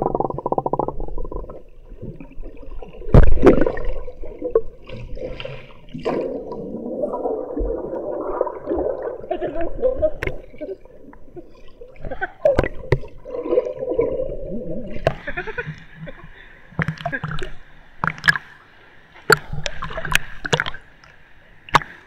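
Muffled underwater gurgling and sloshing heard through an action camera's waterproof case held below the surface of a river pool, broken by sharp knocks, the loudest about three seconds in. After about fifteen seconds the sound grows brighter as the camera nears the surface.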